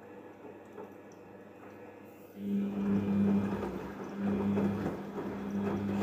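Daewoo DWD-FT1013 front-loading washing machine in its rinse cycle: faint dripping and squishing of wet washing at first, then about two and a half seconds in the drum motor starts with a steady hum and the drum turns the clothes through the rinse water, sloshing, the hum swelling and dipping a couple of times.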